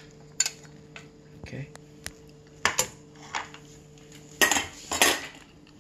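Metal skimmer clinking and scraping against a stainless steel stockpot as cooked green mussels are scooped out, their shells clattering; a scattering of sharp clinks, with the loudest clatters about four and a half and five seconds in.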